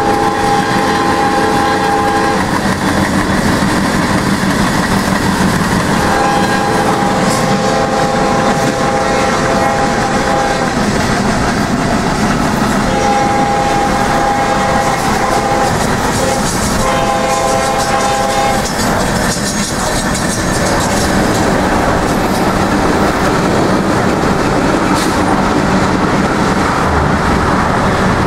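Norfolk Southern freight locomotive's air horn sounding a chord of several notes in four blasts, the last one short. Under it is the steady rush of road and wind noise from a car keeping pace with the train; the horn ends a little past halfway.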